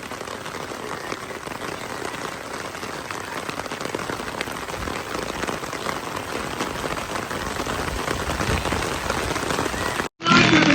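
Rain falling steadily, a dense patter of drops. Near the end it cuts off abruptly and music starts.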